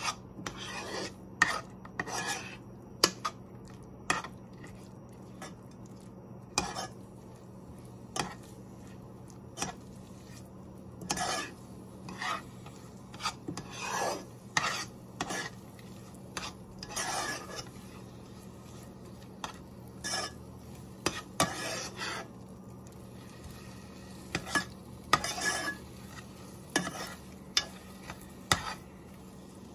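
A metal spoon stirs and scrapes a thick filling around a nonstick pot. There are irregular scraping strokes and sharp taps of the spoon on the pot, over a steady low hum.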